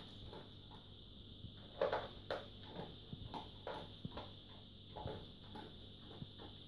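German Shepherd eating dry kibble from a plastic bowl: irregular crunching and clicking of kibble as it chews and noses the bowl, loudest about two seconds in.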